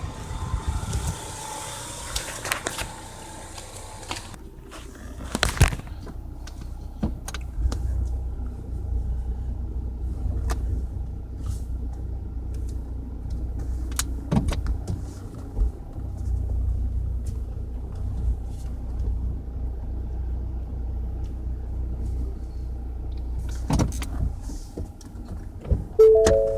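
2015 Ford Mustang with the 2.3-litre EcoBoost turbo four running, a steady low rumble with a few sharp clicks and knocks. There is hiss for the first few seconds and a few chime-like notes near the end.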